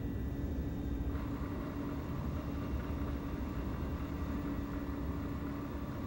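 Steady low machinery rumble with a constant hum, a sound-effect ambience for a mechanical facility; a brighter hiss layer joins about a second in.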